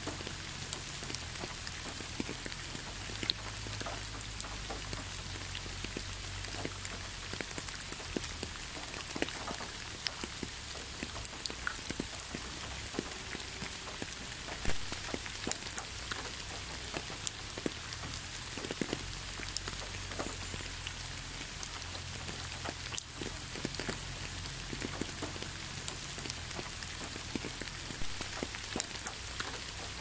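Waterfall: a steady rush of falling water, dense with small splashes and drips, over a low rumble.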